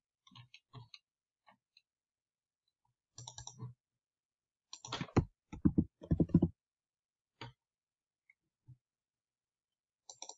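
Computer mouse clicks and keyboard keystrokes in short scattered clusters, the loudest run of keystrokes coming about five to six and a half seconds in.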